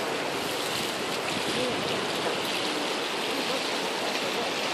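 Ocean water washing and splashing against shoreline rocks, a steady rush of surf.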